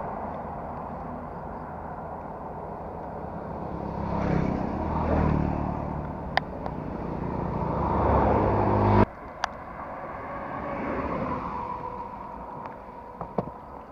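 Honda MSX125's small single-cylinder engine running on the move, with wind and road noise. It revs up and grows louder from about four seconds in, then the sound drops away abruptly about nine seconds in, leaving a quieter hiss with a few sharp clicks.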